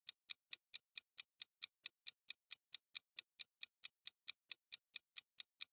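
Quiz countdown timer's clock-ticking sound effect: quiet, even ticks at about four and a half a second.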